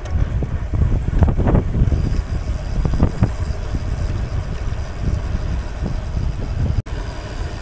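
Wind buffeting the microphone of a camera on a moving road bike, a gusty low rumble mixed with tyre noise on the road. The sound cuts out for an instant near the end.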